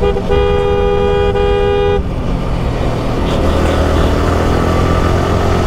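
A vehicle horn sounds one steady, two-note blast for about a second and a half near the start, over running motorcycle engine and road noise that carry on after it.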